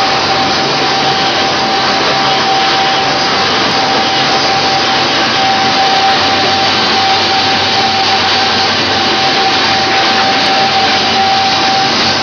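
High-shear emulsifying mixer running steadily: a loud, even whir with a steady whine held at one pitch.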